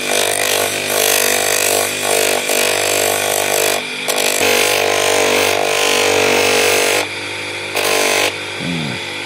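Electric motor-driven 400-grit sanding wheel running steadily while a wooden full-tang knife handle, steel tang edges included, is pressed against it in several passes, with a rasping grind. The grinding drops away briefly about four seconds in and again about seven seconds in, when the handle is lifted off and only the motor hum is left.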